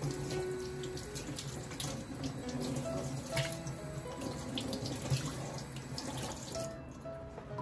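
Water running from a tap into a sink, with small splashes, shut off near the end. Soft background music plays underneath.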